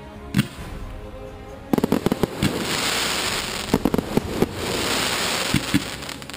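Fireworks going off: a single sharp bang shortly after the start, then from about two seconds in a continuous hiss with clusters of sharp bangs as shells burst overhead.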